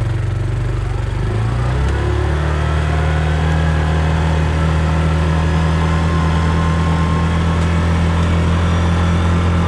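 A vehicle engine speeds up from a slow, pulsing idle about two seconds in, then runs steadily at higher revs as the vehicle drives.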